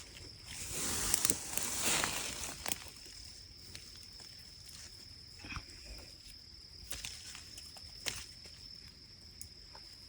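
Rustling of grass and bramble stems being pushed through and handled, loudest in the first three seconds, followed by a few scattered light snaps and clicks. A steady faint high-pitched tone runs underneath.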